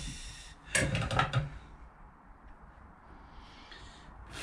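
Hand tools being handled on a wooden workbench: a quick run of clicks and knocks about a second in, then faint scratching of a marking tool along a small square on oak near the end.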